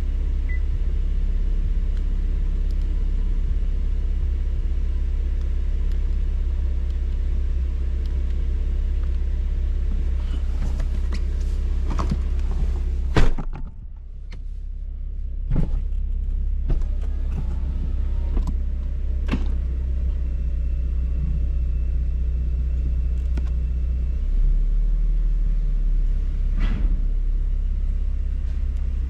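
2017 Camaro's 3.6-litre V6 idling steadily, a low rumble, just started after an oil change with the oil pressure up. A few sharp knocks cut in, the loudest about halfway through.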